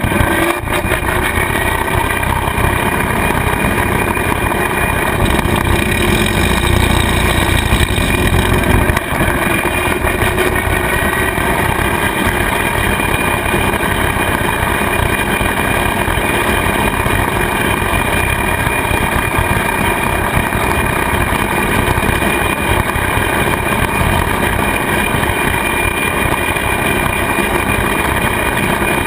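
Kubota tractor engine running steadily while driving a rotary cutter (bush hog) through its PTO shaft, mowing pasture grass: a continuous engine-and-cutter drone.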